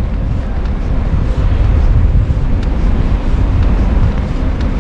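Wind buffeting the microphone of a camera on a moving bicycle: a steady, loud low rumble with a few faint clicks.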